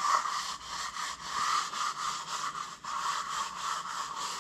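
A gloved hand scrubbing the cast-iron T-slot table of a South Bend milling machine with an abrasive pad, in quick uneven back-and-forth strokes. It is a scratchy rubbing that cleans grime and surface rust off the table.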